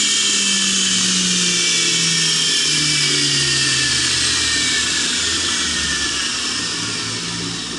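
Drive motor and gearing of a small drive-wheel machine running with a high whine whose pitch falls slowly as it slows down for a push-button direction change, getting quieter near the end.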